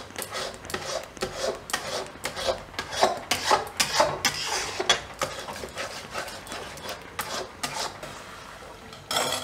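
Metal spatula scraping around the bottom of a metal kadai while stirring a thickening milk and milk-powder mixture, kept moving so it doesn't stick as it cooks down toward mawa. The strokes come fast and irregular, about two or three a second, and ease off near the end, with a brief louder sound just before it stops.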